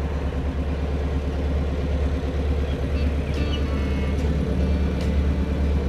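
Narrowboat engine running steadily at cruising speed, a constant low drone.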